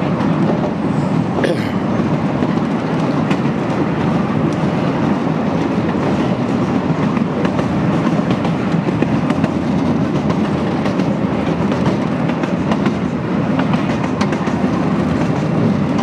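Miniature 12-inch-gauge railway passenger cars rolling steadily along the track, a continuous rumble of wheels on rail with occasional light clicks.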